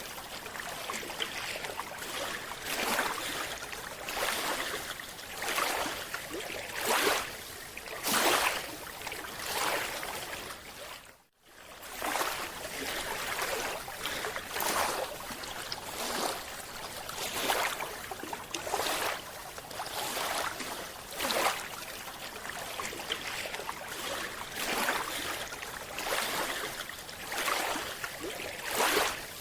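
Water noise, rushing in repeated surges about every second and a half, briefly cutting out about eleven seconds in.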